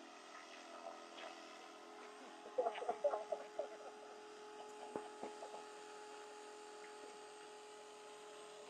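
Mikado Logo 400 electric RC helicopter flying at a distance, its motor and rotor giving a faint, steady whine. About two and a half seconds in comes a brief cluster of louder crackling clicks, with a couple more near five seconds.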